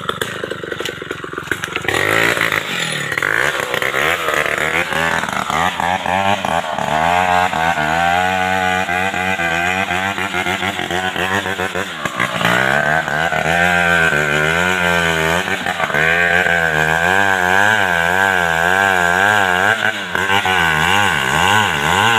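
Two-stroke chainsaw cutting into the trunk of a merbau tree, its engine pitch wavering up and down continuously as the chain bites into the wood under load. It gets louder about two seconds in and dips briefly twice.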